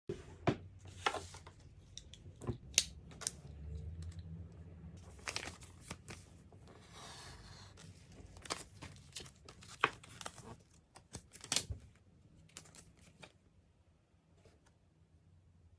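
Packaging being torn open and crinkled by hand, with scattered sharp clicks and taps of items being handled; it goes quieter over the last few seconds.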